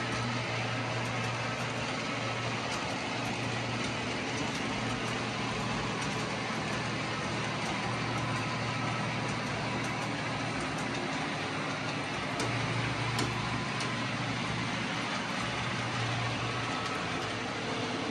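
OO gauge model train running round the layout: a steady mechanical hum with a few faint clicks.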